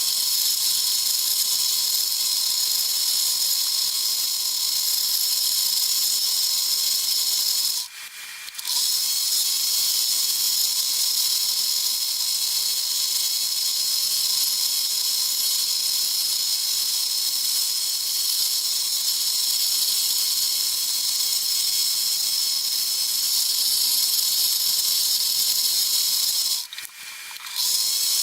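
Steady high hiss of a running workshop power tool with a faint steady whine, cutting out briefly twice.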